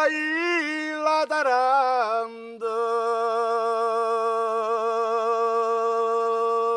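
A man singing unaccompanied: a few short phrases that bend up and down in pitch, then one long, steady held note.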